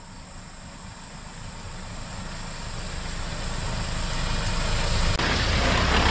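Hyundai Porter light truck driving up and passing close by on a narrow paved lane: engine and tyre noise growing steadily louder, loudest as it goes past near the end.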